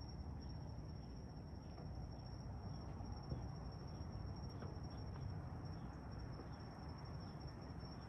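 Crickets trilling steadily in one unbroken high note, faint, over a low rumble.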